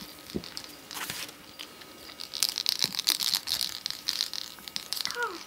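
Rustling, crinkling, scratchy noise in two spells, with a few light knocks, during handling and movement around the pet rats' pen. A short falling tone near the end.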